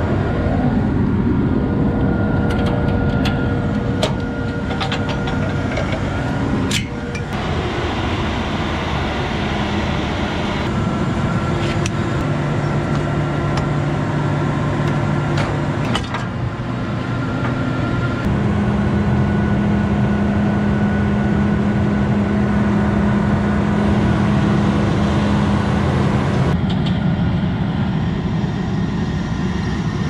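John Deere S690 combine's diesel engine running steadily close by, with a few sharp metallic clicks in the first several seconds. The drone changes pitch abruptly several times.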